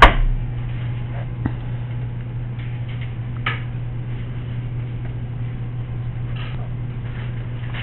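Steady low electrical-type hum, with a few faint, soft taps and rustles of clay being pressed and handled by hand.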